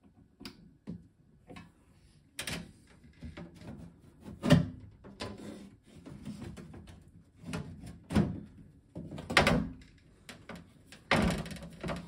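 Metal bottom panel and casing of an over-the-range microwave being handled and fitted back together: a series of irregular knocks and clatters, the sharpest about four and a half seconds in.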